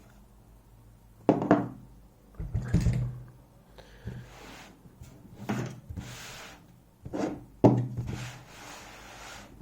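Handling noise on a work surface: a series of knocks and thuds with rubbing and shuffling between them, the two loudest about a second and a half in and near eight seconds in.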